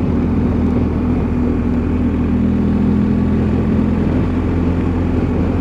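BMW R1250 motorcycle's 1254 cc boxer-twin engine running steadily while under way on a city road: a constant low hum with road and wind noise.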